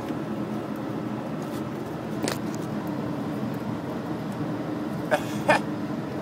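Steady low city hum, with a few short knocks, two of them close together about five seconds in.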